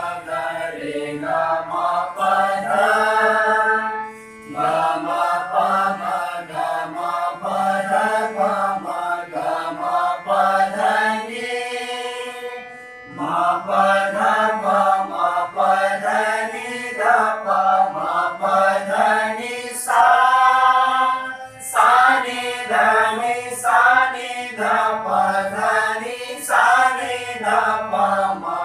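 A group of voices singing an Indian sargam alankar exercise in unison, stepping note by note through the scale, over a harmonium. Brief pauses between phrases about 4, 13 and 22 seconds in.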